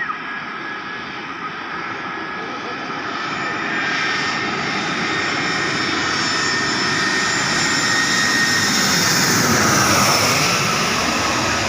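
Airbus A320 jet airliner on landing approach, its engine noise and steady whine growing steadily louder as it comes close and peaking about ten seconds in.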